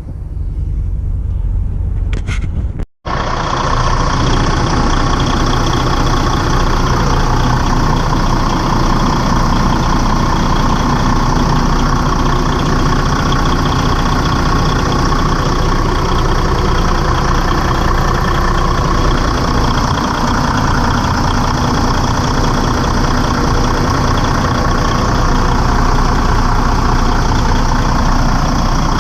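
Detroit Diesel DD15 inline-six diesel engine idling steadily, run to check that a newly fitted serpentine belt stays on its pulleys. The sound drops out briefly about three seconds in, then the idle runs on unchanged.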